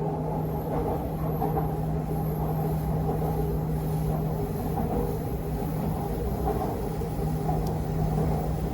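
Purple Line metro train running between stations, heard from inside the carriage: a steady rumble with a constant low hum.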